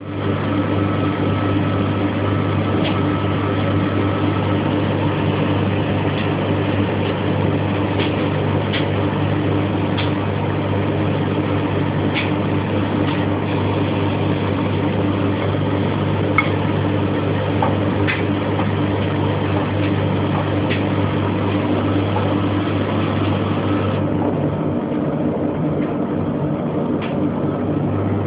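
A White-Line VW1447 A4 washing machine and a Whirlpool AWZ 7547 tumble dryer running together: a steady low hum and drum rumble with light clicks now and then. The higher hiss drops away for a few seconds near the end.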